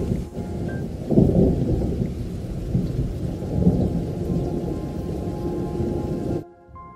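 Heavy rain pouring down, a dense steady rush with deep rumbling swells a couple of times; it cuts off suddenly near the end.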